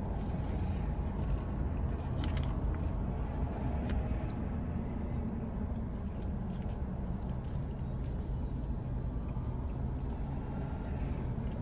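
Car engine running steadily, heard from inside the cabin, as the car is moved a short way to a new parking spot. A few faint clicks sound over it.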